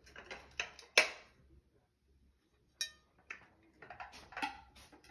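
Clear glass plates clinking and knocking as they are set down around a table: several sharp clinks, the loudest about a second in, one that rings briefly about three seconds in, and a quick cluster near the end.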